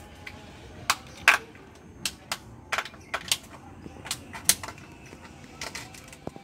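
A dozen or so sharp, irregularly spaced clicks and taps on a handheld plastic tub holding scorpions on damp sawdust, the loudest about a second in.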